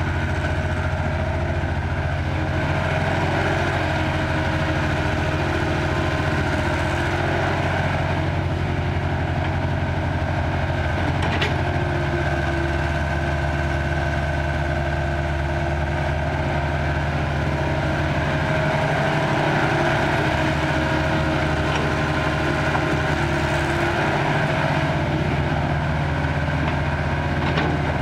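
Caterpillar excavator's diesel engine running steadily as it digs, with a steady whine over the engine note. Two brief sharp knocks, one about midway and one near the end.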